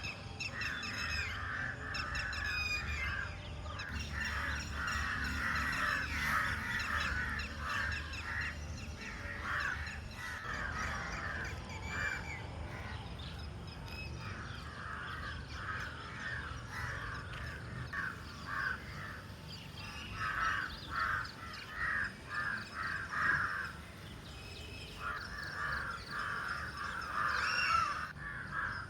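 Birds calling in several bouts of rapidly repeated notes, with higher chirps mixed in.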